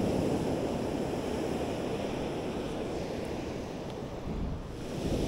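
Wind buffeting the microphone, a steady low rumble, over surf breaking and washing up the beach.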